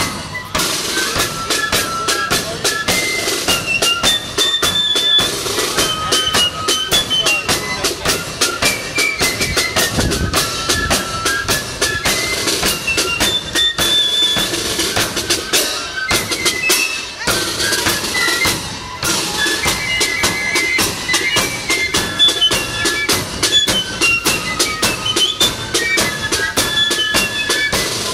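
Marching flute band playing: flutes carry a high stepping melody over a bass drum and snare drums.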